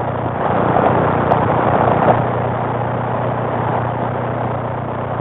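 CB radio receiver on AM channel 19 hissing with static, a steady noise with a low hum running underneath and no voice coming through.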